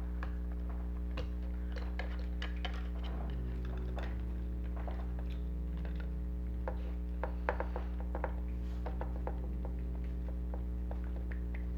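Scattered small clicks and taps of screws and plastic parts being handled and fitted into a toy's mechanism, with a few sharper knocks a little past the middle, over a steady low hum.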